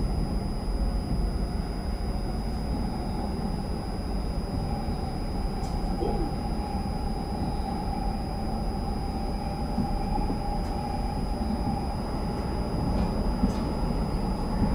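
Kintetsu 80000 series Hinotori electric train running through an underground tunnel, heard from inside behind the cab: a steady running rumble with a held whine and a few faint clicks.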